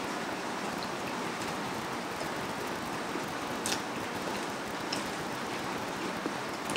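Steady rain-like hiss, with a few faint clicks as fried battered quail eggs are chewed and speared onto a bamboo skewer.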